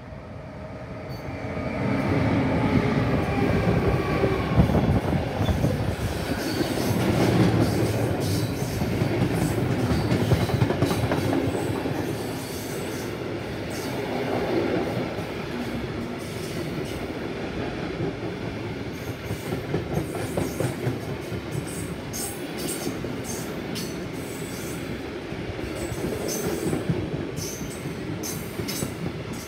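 Two DB Cargo class 189 electric locomotives pass close by with a coal train, with an electrical whine in the first few seconds. They are followed by the steady rolling rumble of a long rake of coal hopper wagons, with sharp clicks of wheels over the rail joints, more frequent in the second half.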